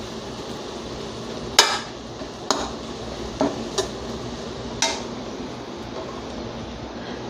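Steel spoon stirring an amaranth-leaf and egg scramble in a metal kadai, clinking sharply against the pan five times in the first five seconds, the first clink the loudest. A low steady hiss from the pan runs underneath.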